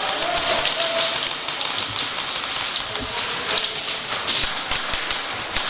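Airsoft guns firing: a dense, irregular patter of sharp snapping shots and BB hits, several a second, with distant shouting underneath.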